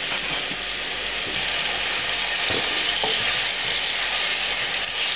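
Banana slices frying in hot oil with mustard seeds, a steady hissing sizzle, with a few light knocks of a wooden spatula moving the slices in the pan.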